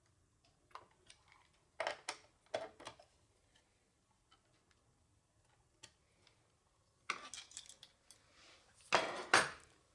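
Light clinks and knocks of tools and workpiece being handled at a router table, in two short clusters, with the router itself not running.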